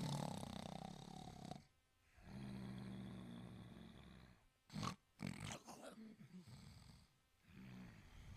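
Italian greyhound snoring in its sleep: a series of drawn-out snoring breaths with short pauses between them, and a couple of short, sudden bursts of breath about five seconds in.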